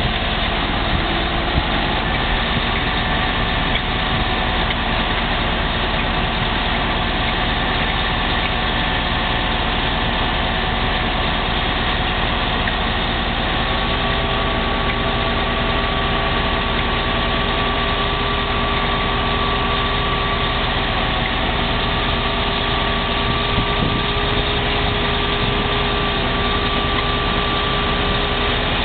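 Motor grader's diesel engine running steadily as it pulls a rubber-tyred packer/roller over graded soil.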